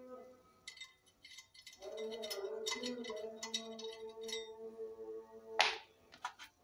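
Light metallic clicks and clinks of steel bolts and welded steel parts being handled and fitted on a homemade lathe's bed, over a steady humming tone. About five and a half seconds in there is a short loud rushing sound.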